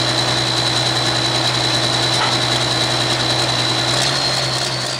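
Minneapolis-Moline pro farm pulling tractor's 640 cubic-inch diesel idling steadily with a loud, even drone and a steady high whistle on top.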